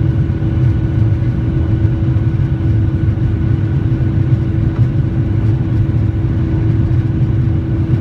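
Boeing 737-900ER's CFM56-7B jet engines in a steady drone: a low rumble with several steady hums above it, unchanging throughout.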